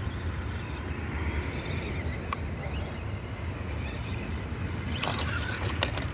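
FMS Smasher V2 RC monster truck running over rough ground, with a burst of crunching and sharp clicks about five seconds in, all under a steady low rumble.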